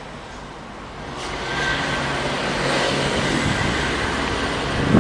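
A road vehicle approaching and going by, its engine and tyre noise swelling from about a second in and staying loud, with a short low thump near the end.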